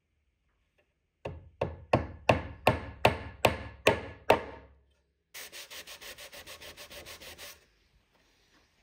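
About nine sharp taps, roughly three a second, driving a glued square wooden peg into a hole in a hardwood board. They are followed by a couple of seconds of fast back-and-forth rubbing strokes on the wood, about seven a second.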